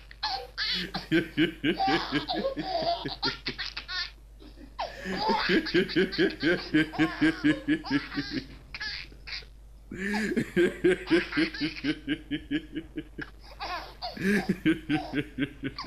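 A man laughing hard in long runs of quick, rhythmic 'ha' pulses, breaking off briefly twice and starting up again.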